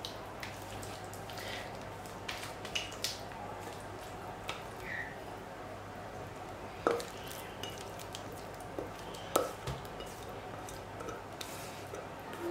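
Thick vegetable-and-egg batter plopping and squelching as it is scraped with a silicone spatula out of a glass bowl into a glass baking dish. Scattered soft wet sounds with a few sharp clicks of spatula and glass, the two loudest about seven and nine and a half seconds in, over a steady low hum.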